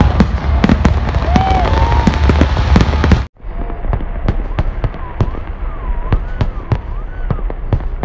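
Aerial fireworks display: rapid bangs and crackle of bursting shells over a continuous rumble, with a few wavering whistles. The sound cuts out abruptly for a moment about three seconds in, then the bangs go on thinner.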